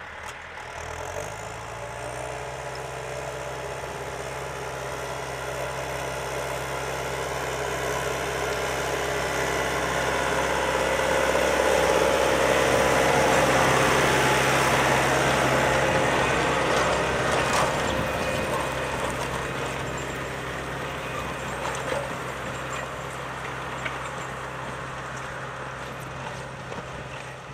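John Deere 6310 tractor's diesel engine running at a steady speed under load while it pulls a three-furrow reversible plough, growing louder toward the middle and then fading as it passes.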